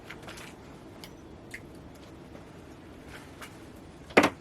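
A few faint light clicks of handling, then one sharp knock near the end.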